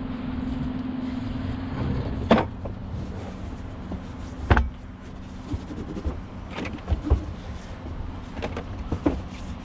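Knocks and clunks of items being handled and set down in a pickup truck bed: two sharp knocks about two and four and a half seconds in, then lighter ones, over a steady low hum.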